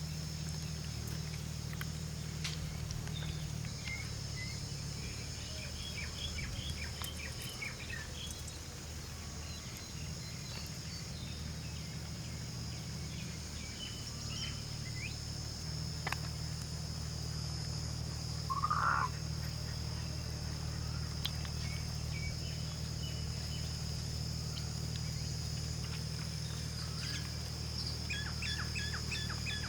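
Rural outdoor ambience: a steady high insect drone with scattered bird chirps over a steady low hum. One louder short call comes about two-thirds of the way in.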